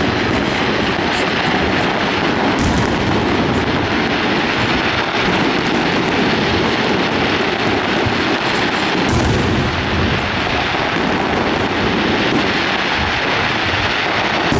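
Fireworks display: aerial shells bursting one over another in a continuous barrage of booms and crackle, with a few sharper cracks.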